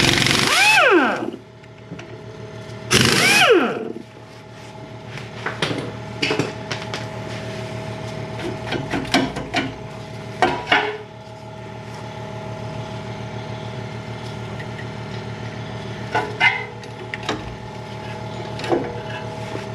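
Two short bursts of a power tool spinning out the 17 mm brake caliper bolts, each winding down in pitch as it stops. Scattered metal clicks and knocks follow as parts are handled, over a steady hum.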